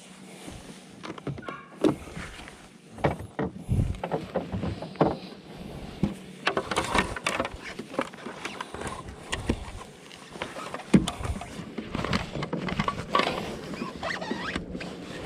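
Irregular knocks, clunks and rustling of fishing gear being handled in a plastic kayak, with a landing net being moved over the bow near the end. A faint steady hum runs underneath.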